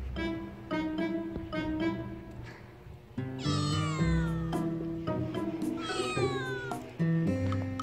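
A young black-and-white stray kitten meows twice, each call about a second long and falling in pitch, the second starting a couple of seconds after the first. Background music with plucked notes plays throughout.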